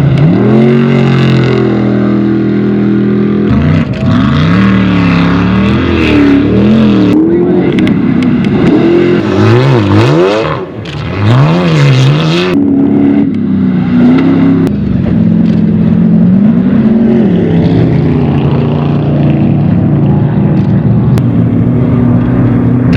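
Off-road race vehicle engines revving hard, the pitch swinging up and down over and over as the throttle opens and closes, with more than one engine heard at once. The level drops briefly about ten seconds in, then the revving comes back loud.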